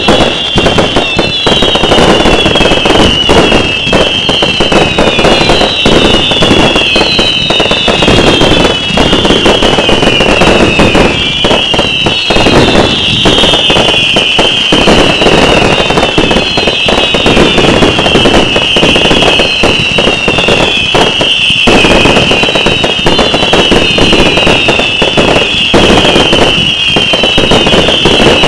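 A firework barrage going off continuously and loudly: a string of overlapping whistles, each falling a little in pitch, over dense crackling and bangs.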